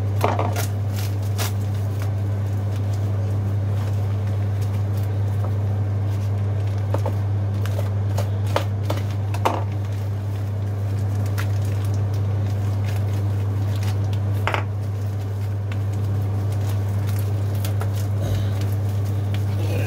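A steady low hum with scattered light clicks and knocks, the clearest about halfway through and again a few seconds later.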